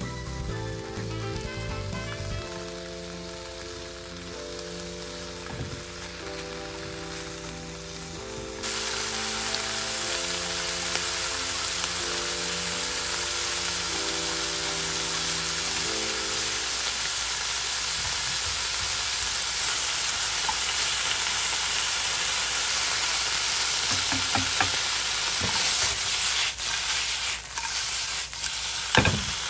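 Sliced pork belly sizzling in a nonstick frying pan. The sizzle comes in suddenly about a third of the way through and stays steady, with a few sharp knocks near the end as the meat is stirred. Light background music plays over the first half.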